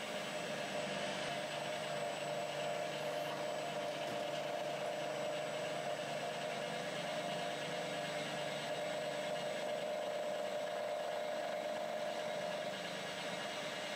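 Bridgeport milling machine running steadily with its spindle turning, drilling the mounting holes in the filter body; an even hum with no change in speed.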